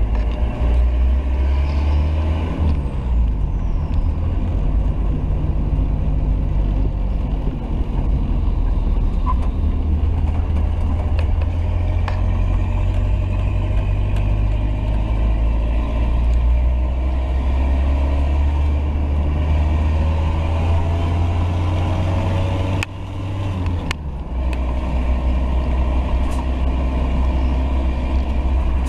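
1985 Toyota Land Cruiser BJ60's 3B four-cylinder diesel with a custom TD05H turbo, running under load while driving, heard from inside the cab. The engine sound dips briefly about three quarters of the way through, then picks up again.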